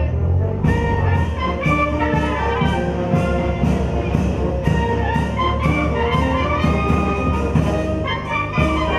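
Brass band playing a march, sustained brass notes over a steady beat of drum and cymbal strikes about twice a second that comes in under a second in.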